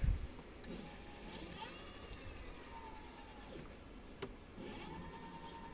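Rear electric hub-motor wheel spinning, its drum brake shoes giving a faint, high-pitched, rapid 'tsik-tsik-tsik' squeak: the metallic brake-shoe whistle being fixed. It runs in two stretches with a click about four seconds in.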